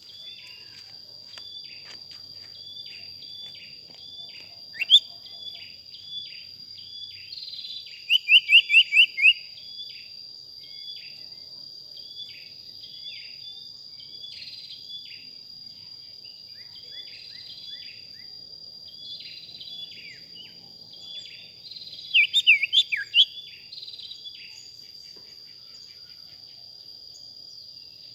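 A male sirtu bird calling: a run of short descending notes about twice a second, broken twice by loud bursts of five or six rapid rising notes. A steady high insect drone runs underneath.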